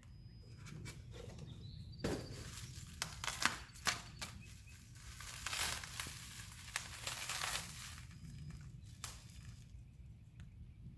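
Cardboard box and its packing being opened and handled: rustling, crinkling and scraping with sharp knocks, busiest through the middle, over a steady low hum. Faint bird chirps.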